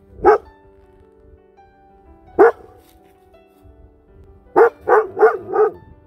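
Goldendoodle barking: a single bark right at the start, another about two seconds later, then a quick run of four barks near the end. Soft background music with held notes plays underneath.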